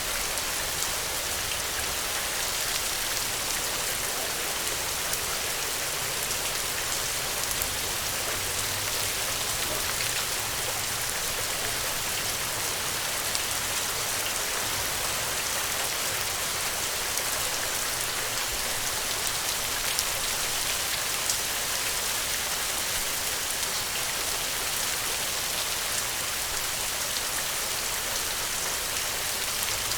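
Steady rain falling on the ground, an even hiss with many small drop ticks scattered through it.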